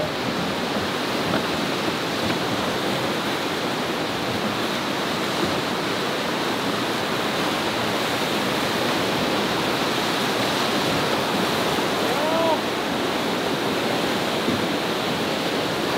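Steady rush of river water running through a rapid.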